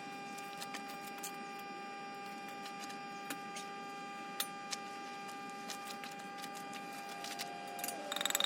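A steady electrical hum with scattered faint clicks and ticks; near the end a quick run of ticks comes in and the hum drops in pitch.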